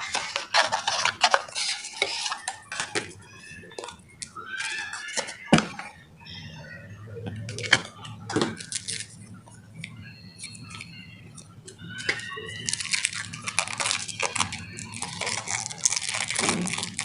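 Tempered-glass screen protector packaging being handled: irregular rustles, clicks and light clinks, with faint voices in between.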